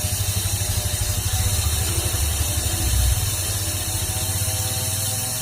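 A small engine or motor running steadily with a low, rapid, even pulse, easing off a little over the last couple of seconds.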